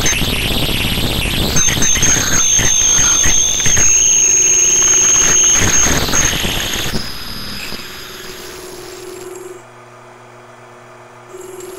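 Mini lathe cutting a workpiece: a harsh cutting noise with a steady high-pitched squeal. The cutting stops about seven seconds in, leaving the lathe running more quietly with a low hum.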